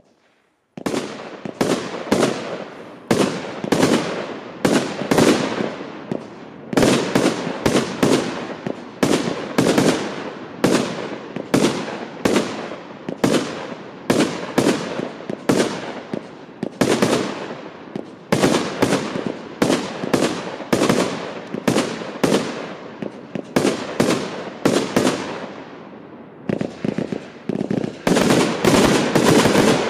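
El Gato Pirotecnia 'Happy Night' 25 mm firework compound cake firing its shots in rapid succession, about two a second, starting about a second in and keeping up without a break.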